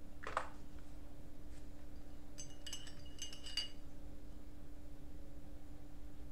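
Faint steady hum with a short run of light clicks and clinks with a high ringing tone about two and a half to three and a half seconds in.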